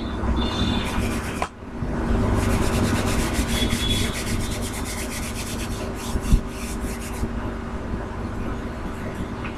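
Felt chalk duster wiped back and forth across a small chalkboard, a dense scrubbing run of rapid strokes lasting several seconds and then stopping, with one sharp knock near the end. A steady low hum sits underneath.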